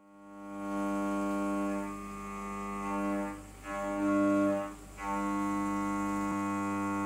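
CNC mill end mill cutting a metal soft jaw under flood coolant: a steady droning tone at fixed pitch that fades in over the first second, drops out briefly twice around three and a half and five seconds in, then holds steady.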